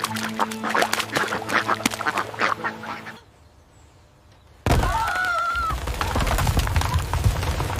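Ducks quacking rapidly over steady background tones for about three seconds, then a pause, then a sudden low rumble with a brief wavering whistle.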